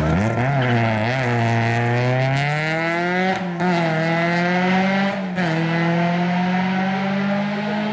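Rally car engine revving hard as the car powers out of a tight bend, its pitch dipping and then climbing. Two quick upshifts come about three and a half and five seconds in, and the engine then holds high revs as it pulls away.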